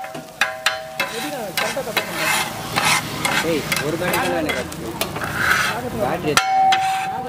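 Kothu parotta being made on a flat griddle (tawa): metal spatula blades clink rapidly for about the first second, then scrape and stir the chopped parotta as it sizzles, with a brief ringing tone near the end.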